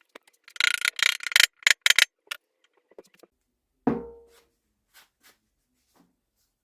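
Wood being worked with a hand tool: a quick run of scraping strokes, then a single knock of wood on wood with a short ringing decay, while a wooden mallet is being finished.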